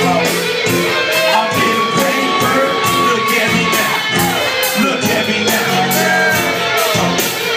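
Loud live band music: drums keeping a steady beat with electric guitar and keyboard, and crowd voices shouting and singing over it.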